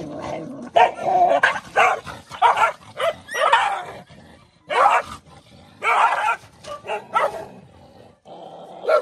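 Dogs snarling, growling and barking in short, sharp outbursts, about a dozen through the stretch: a scuffle as one guards the food bowl from the others.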